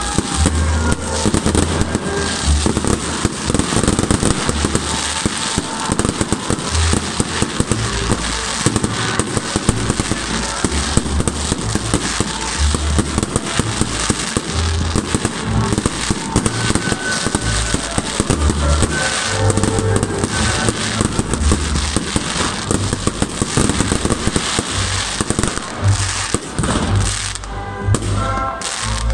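Aerial fireworks display: a dense, continuous barrage of bangs and crackling from bursting shells, thinning out slightly near the end.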